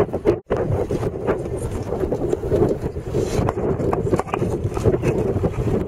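Wind buffeting the microphone of a camera held out of a moving vehicle's window, over the rumble of the vehicle driving on a dirt road. The noise drops out for an instant about half a second in.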